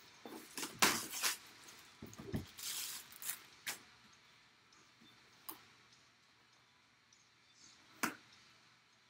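Cardboard box being handled: a short rustle of clear plastic wrap and a scattering of sharp taps and knocks as the box is set down, then tipped up with its lid lifted about eight seconds in.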